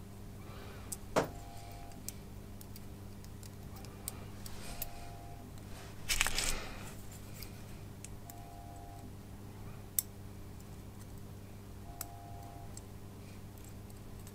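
Small clicks and taps of fine tweezers and tiny metal parts as an N gauge locomotive chassis is put back together by hand. There is one sharper click about a second in, a short rustle about six seconds in and another click near ten seconds, over a steady low hum.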